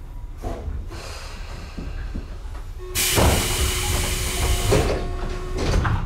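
Tobu 9000 series commuter train coming to a stop with a low rumble. About halfway through there is a sudden loud hiss of compressed air lasting a couple of seconds, then knocks as the pneumatic passenger doors slide open.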